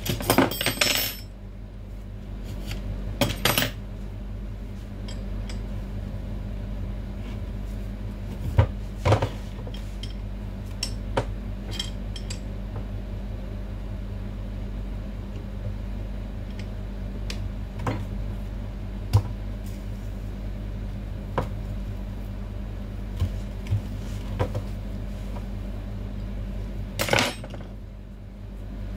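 Metal clinks and knocks of steel parts of a barber chair's hydraulic pump and lift cylinder being handled and fitted together on a workbench, scattered and irregular, over a steady low hum.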